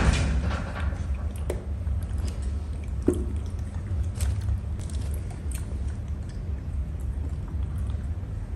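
A monkey chewing grapes: scattered small clicks over a steady low hum, with a louder sharp sound right at the start and another click about three seconds in.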